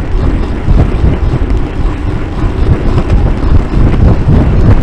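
Heavy wind buffeting on the microphone of a bike-mounted Fly6 rear camera at racing speed, a loud rumbling rush, with scattered clicks and rattles from the bike on the road.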